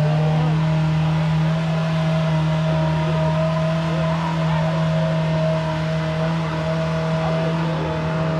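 Side-by-side UTV engine running steadily at an even, unchanging pitch while the machine drives along.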